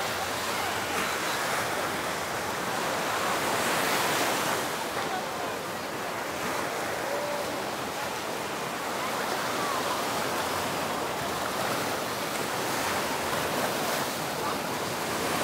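Surf washing onto a sandy beach, a steady rush that swells about four seconds in, with faint voices of a beach crowd underneath.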